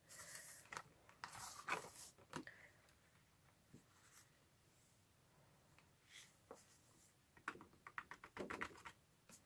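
Faint handling sounds of clear embossing powder being tipped off a sheet of cardstock into a plastic tub: soft rustles and light taps. Near the end comes a quick run of small ticks as powder is scraped about in the plastic tub.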